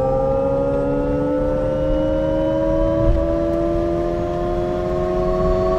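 Alpine A290 electric car accelerating: a whine of several tones that rises slowly and steadily in pitch, over a low rush of road noise.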